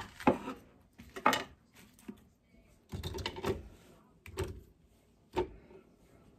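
Kitchen knife cutting an onion on a wooden cutting board, then a few separate knocks and clatters as onion chunks are put into the plastic bowl of a small electric food chopper, which is not running.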